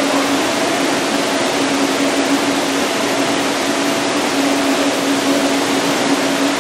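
Steady rushing noise of an indoor pool hall with a water slide, water running and ventilation blending into one even wash, with a faint steady hum underneath.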